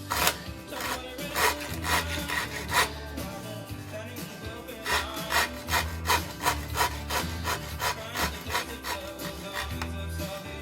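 Microplane rasp cutting into the wooden shoulder of a Greenland paddle blade in quick repeated scraping strokes, about two or three a second, with a short pause in the middle. The rasp is hogging off wood fast and leaving a rough surface.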